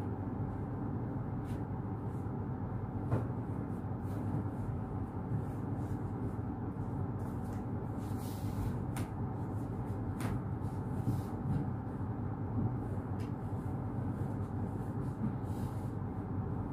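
Air conditioner running with a steady low hum, a few faint clicks over it.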